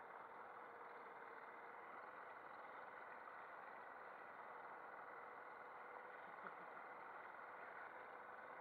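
Small outboard motor on an inflatable boat running steadily and faintly, a constant engine drone with a steady whine over it.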